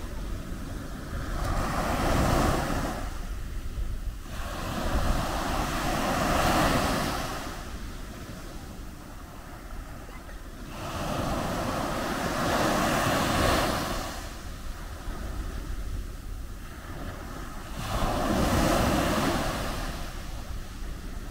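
Small sea waves breaking and washing up on a beach in four slow surges that swell and fade several seconds apart. Wind on the microphone adds a low rumble underneath.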